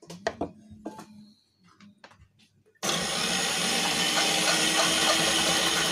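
Electric meat grinder with a shredder-drum attachment switches on abruptly about three seconds in and runs loudly, shredding carrots. Before it starts there are a few light knocks and clicks of vegetables and the machine being handled.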